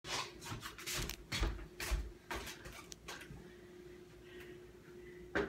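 Knocks, bumps and rustles of a phone being handled and set down in place. After that come a few quieter knocks, with a faint steady hum underneath, and one more knock near the end.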